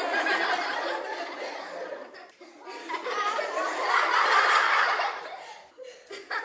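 Several people laughing and chuckling, a canned laughter sound effect, in two swells with the second one louder.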